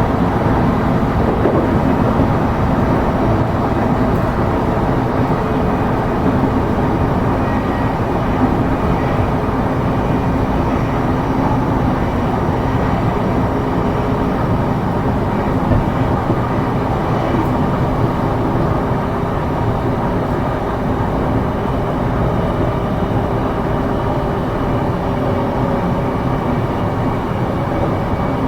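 Running sound inside an E233-series electric multiple unit travelling between stations: a steady rumble of wheels on rail, with a faint steady hum from the drive.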